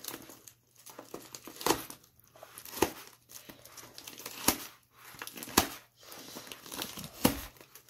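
Plastic shipping mailer being crinkled and torn open by hand: bursts of crinkling with several sharp crackles about a second apart.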